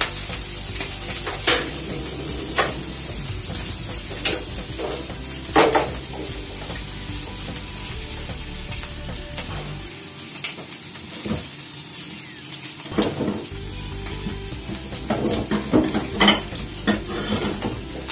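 Food sizzling steadily in a frying pan on a gas burner, with scattered clicks and knocks of chopsticks and utensils against the pan, several close together near the end.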